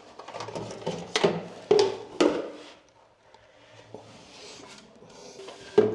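Handling noise from hard objects: a few sharp knocks and clatters in the first two seconds or so, then quieter rustling and scraping, and another sharp knock near the end.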